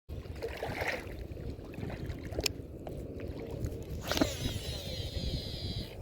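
Fishing cast: a sharp swish about four seconds in, then a high whine slowly falling in pitch as the reel spool spins out line, over a steady low rumble.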